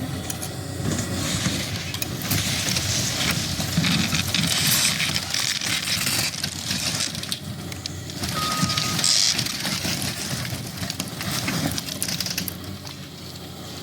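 Cat excavator's engine running under load while the building it is pushing cracks and crunches, with a steady run of sharp snaps and creaks and louder crashing bursts about four and nine seconds in.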